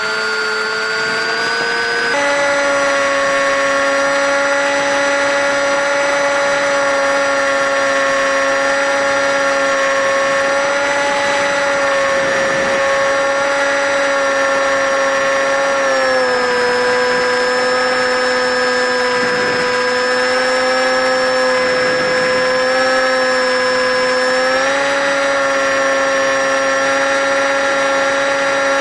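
RC park flyer's motor and propeller running in flight with a steady whine. Its pitch steps up about two seconds in, dips lower for several seconds past the middle, then rises again near the end as the throttle changes.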